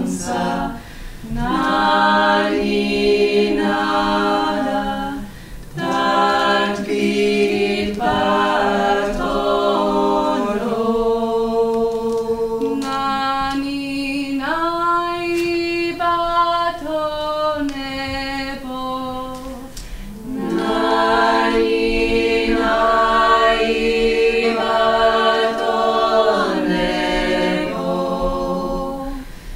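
A small a cappella vocal ensemble singing a Georgian polyphonic folk song in close harmony. A low note is held beneath moving upper parts, in long phrases broken by short breaths.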